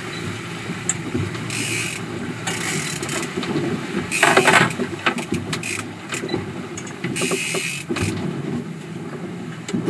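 A fishing reel's gears ticking and clicking as line is wound in, over a Mercury outboard motor running steadily. Water rushes and splashes past the hull in a few swells, loudest about halfway through.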